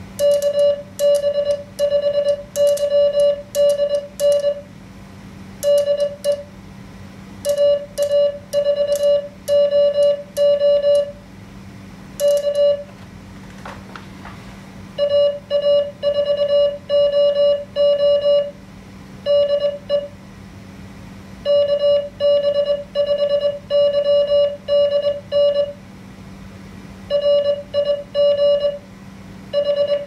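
Morse code sidetone from an MFJ-493 memory keyer, a single steady tone keyed on and off. For about the first twelve seconds the operator sends "KB5YDN DE AA4OO K" on a paddle key, and the paddle's mechanical clicks sound with each burst of tone. After a pause of about two seconds, the keyer's QSO simulator sends the simulated station's reply in clean tones with no clicks.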